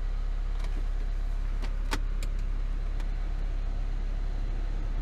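Saab 9-3 1.8t turbocharged four-cylinder petrol engine idling steadily just after being started on fresh oil following an engine flush, heard from inside the cabin. A few light clicks sound over the idle.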